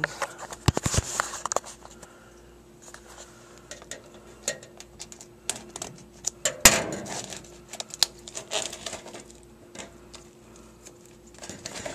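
Fingers picking and scratching at the shrink-wrap on a plastic DVD case: scattered clicks, taps and crinkles, with one sharper knock about two-thirds of the way through.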